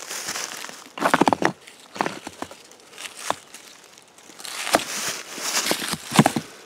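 Rustling of dry leaf litter and scraping of loose rocks as a hand handles and moves stones, in irregular bursts with a few sharp stone knocks.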